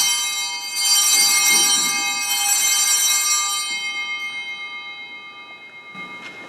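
Altar bells, a cluster of small bright handbells, rung at the elevation of the chalice to mark the consecration. They ring again about a second in and about two seconds in, then die away slowly.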